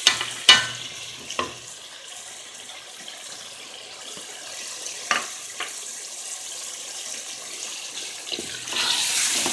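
Onion-tomato masala frying with a steady sizzle in an aluminium pot, broken by a few sharp knocks of a utensil against the pot, the loudest about half a second in. The sizzle swells briefly near the end as the masala is stirred.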